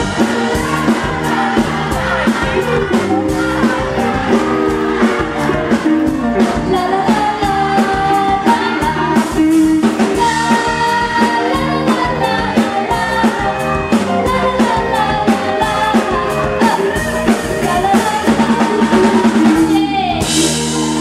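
A woman singing a Thai song live into a microphone, backed by a band with a drum kit and electric guitar.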